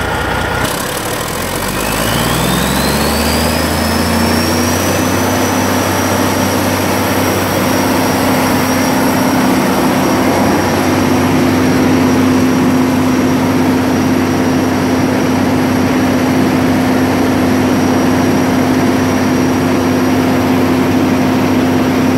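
Detroit Diesel Series 60 14-liter inline-six turbodiesel on a generator set speeding up from idle to its governed running speed over about four seconds, with a rising turbocharger whine. It then runs steadily at speed with no electrical load on the generator.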